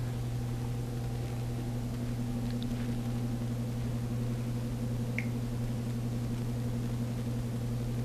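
A steady low hum in a quiet room, with a faint, very brief squeak about five seconds in.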